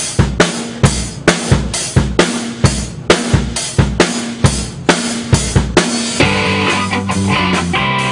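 Live rock drum kit playing a steady beat of bass drum and snare. About six seconds in, the full band enters with electric guitar and bass.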